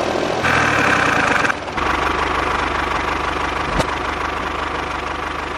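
Tractor engine idling with an even low chug, the running sound that goes with the mini tractor.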